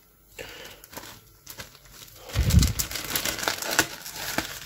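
Clear plastic bag and paper sheets rustling and crinkling as they are handled, soft at first and busier after about two seconds, with a dull low thump just after that.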